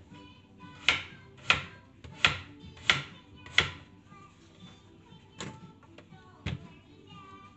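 Chef's knife cutting raw potatoes on a wooden cutting board, the blade knocking on the board with each cut. Five sharp knocks come about two-thirds of a second apart, then two more, further apart.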